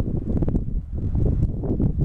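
Wind buffeting the microphone: loud, irregular low rumbling gusts.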